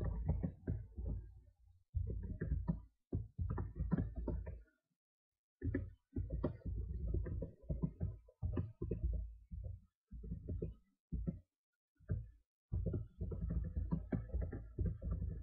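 Computer keyboard being typed on: bursts of keystroke clicks with short pauses between them.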